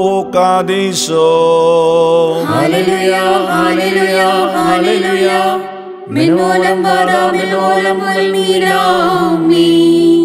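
Sung liturgical chant over a steady low held note, in two long melodic phrases with a short break about six seconds in.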